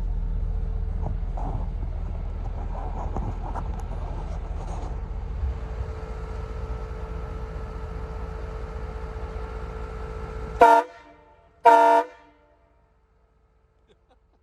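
Hornblaster Outlaw 232 three-trumpet train horn on a Ford F-250 giving two short, very loud blasts about a second apart near the end. Before the blasts the truck's engine idles with a steady low rumble.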